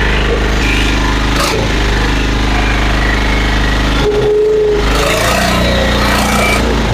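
Engine of a hydraulic firewood splitter running steadily, with one sharp knock about a second and a half in. Around four seconds in the low engine note briefly dips and a steady whine comes through.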